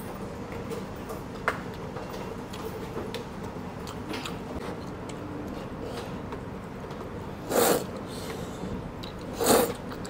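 A man eating hele noodles: quiet biting and chewing, then two short, loud slurps of noodles about 7.5 and 9.5 seconds in.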